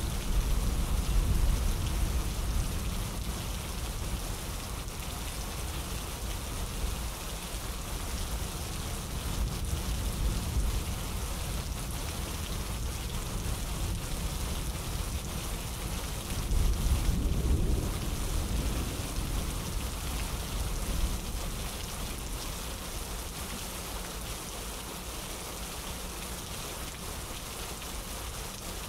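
Steady rain falling, with a low rumble that swells at the start and again just past halfway.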